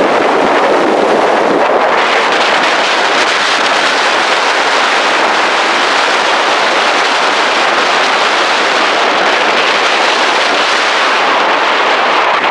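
Strong wind above the treeline blowing across the camera microphone: a loud, steady rushing buffet that turns brighter and hissier about two seconds in.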